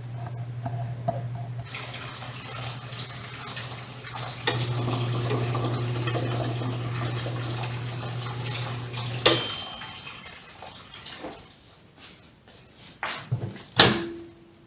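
Toshiba microwave oven running with a steady low hum, joined about two seconds in by a hiss. The hum cuts off with a sharp click about nine seconds in as the heating cycle ends, followed by a few clicks and knocks, the loudest near the end.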